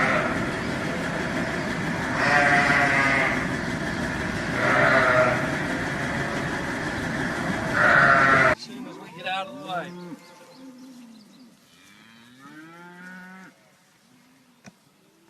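Cattle mooing, four loud calls about two and a half seconds apart over a steady mechanical hum. Partway through, the hum stops abruptly, and a few fainter calls follow.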